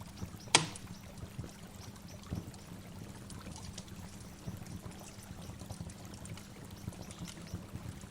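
Running water of a waterfall, splashing and trickling steadily, with one sharp click about half a second in.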